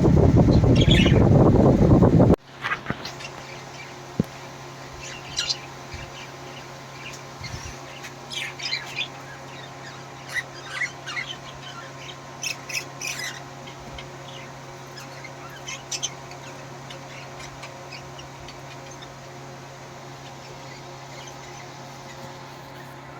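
A loud rushing noise for about the first two seconds cuts off suddenly. Then pet parakeets give short chirps and squawks on and off until about two-thirds of the way through, over a steady low hum.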